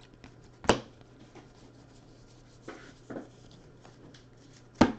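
Baseball trading cards being handled and flipped one by one off a stack held in the hands: light rubbing and ticking of card on card, with sharp card snaps about a second in and again near the end, and two softer ones in between.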